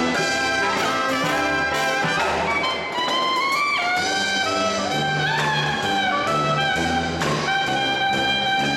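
Brass marching band playing live: trumpets, trombones, saxophones and sousaphone carrying held and sliding notes over a few drum hits.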